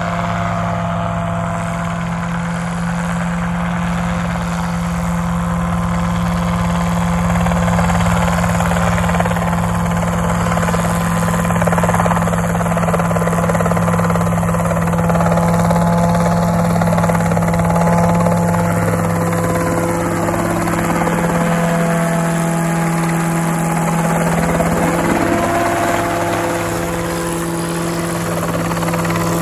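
A homebuilt light helicopter's engine and rotor running steadily as it hovers and flies low. There is a strong, even low hum with several higher tones above it, getting slightly louder near the end.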